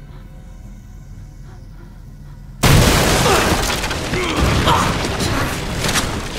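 A low, quiet music drone, then about two and a half seconds in a sudden loud crash of a wall being smashed through, with debris clattering and crashing for about three seconds after.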